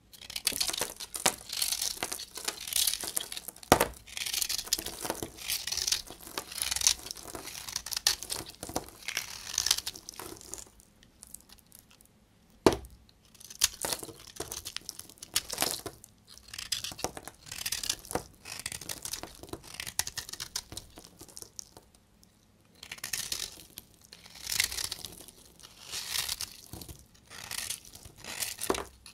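A utility-knife blade cutting and scraping through a dry, cracked bar of brown soap in repeated crunchy strokes, crumbs scattering. Twice, about four and thirteen seconds in, a sharper crack.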